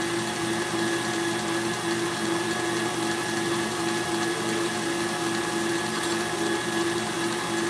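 Stand mixer running at high speed with its wire whisk whipping Italian meringue in a steel bowl: a steady motor hum.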